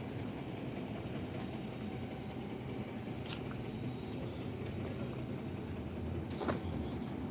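Steady low vehicle rumble, with a couple of faint clicks, one about three seconds in and one near the end.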